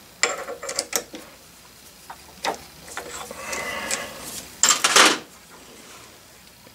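Hands handling tools and the workpiece at a metal lathe: scattered light knocks and clicks, a short scrape about three and a half seconds in, and a louder clatter near five seconds.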